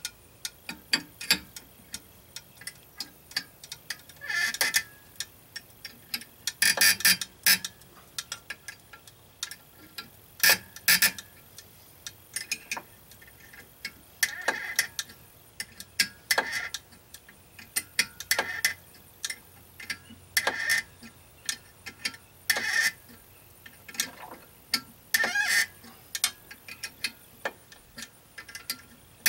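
Wrench clicking in irregular runs as it turns the centre screw of a puller bolted to an Evinrude 9.9 lower unit, slowly drawing a stuck part out of the gearcase, with a few louder metallic clacks between the runs.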